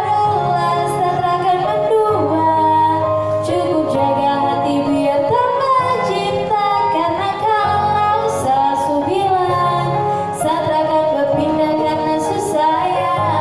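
A female voice singing a slow pop song over instrumental backing music.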